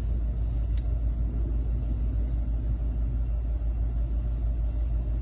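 A steady low rumble in the background, with one faint light click about a second in.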